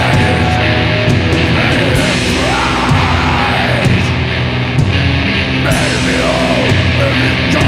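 Black metal music, loud and dense: distorted electric guitars over drums.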